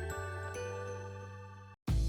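Gentle background music with bell-like chime notes over a sustained bass, fading out and stopping just before the end.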